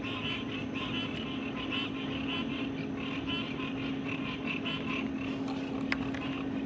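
Frog chorus at a pond: rapid, repeated chirping calls over a steady low hum, with one sharp click near the end.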